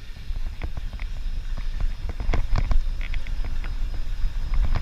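Bicycle ridden over a rough dirt track: wind rumbling on the microphone, with irregular rattles and knocks from the bike jolting over the ground.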